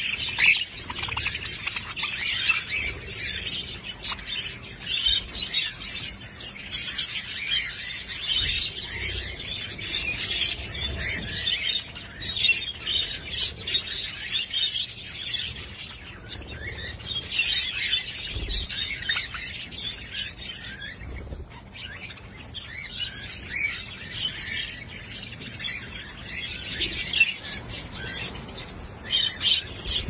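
A flock of budgerigars and cockatiels in an aviary chattering and chirping without pause, a dense overlapping warble of many short calls with the odd louder squawk.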